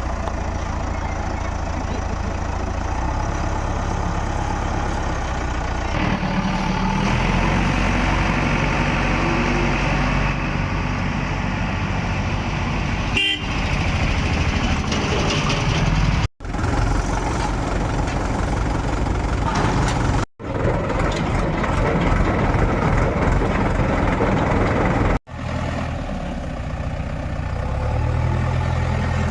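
Heavy diesel engines of a JCB 3DX backhoe loader and farm tractors running under load while mud is loaded, the engine note rising after about six seconds. The sound cuts out abruptly for a moment three times.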